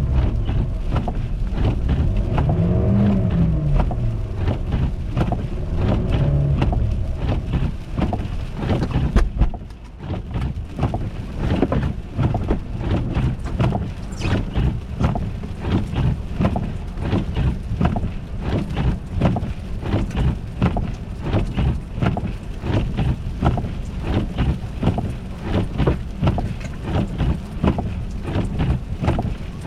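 A car engine running, its pitch rising and falling three times over the first nine seconds. After a break about ten seconds in, a dense run of irregular short knocks and clicks follows.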